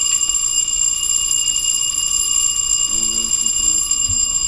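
Building fire alarm bell ringing steadily and without a break, set off by a pulled manual pull station.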